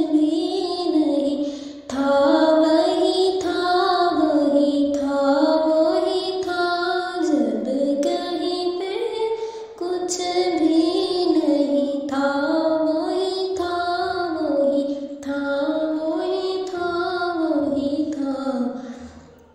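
Background music: a high voice singing a slow, wavering melody, with brief breaths about two and ten seconds in.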